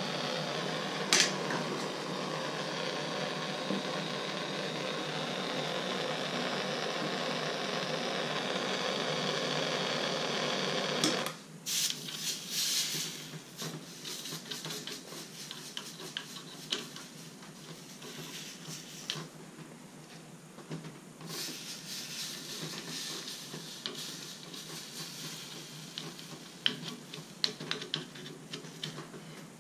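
Soldering torch flame burning with a steady hiss while heating a copper pipe joint on a shower valve, with a sharp click about a second in; the torch is shut off about a third of the way through. After that come faint rustling and small clicks of handling at the fitting.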